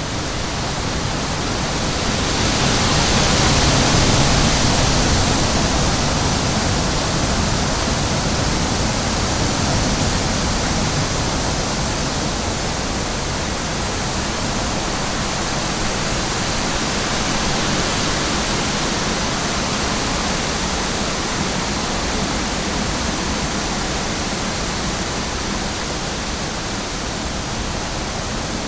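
Steady rushing sound of running water, like a waterfall or fast stream. It swells to its loudest about four seconds in, then holds steady.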